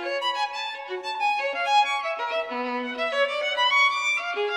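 Background music: a violin playing a flowing melody of short and held notes.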